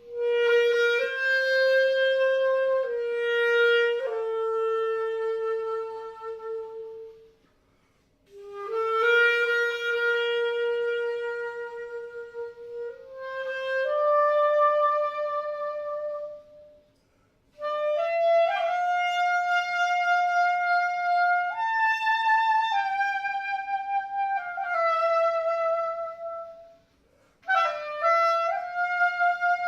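Solo wind instrument playing a slow melody of long held notes, in four phrases broken by brief silences.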